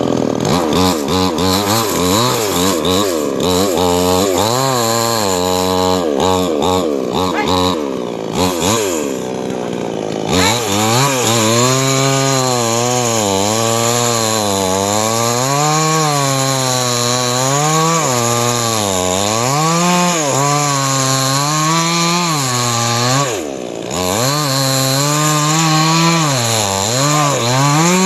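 Two-stroke chainsaw cutting wood, its engine pitch rising and falling continually under load. About eight seconds in it sinks to a low note for a couple of seconds before revving sharply back up, and it dips briefly again near the end.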